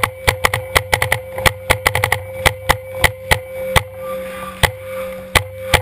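Paintball markers firing in rapid strings of sharp pops, about five or six shots a second, thinning to a few scattered shots after about four seconds.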